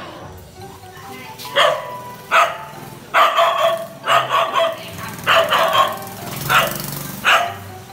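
Golden retriever barking repeatedly up at a cat in a tree, about ten loud barks, several in quick pairs.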